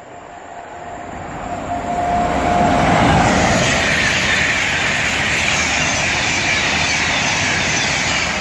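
InterCity 225 express (Class 91 electric locomotive with Mk4 coaches) passing through the station at speed. The wheel-on-rail and air rush builds to its loudest about three seconds in and stays loud as the coaches go by. A faint steady tone is heard in the first three seconds as the train approaches.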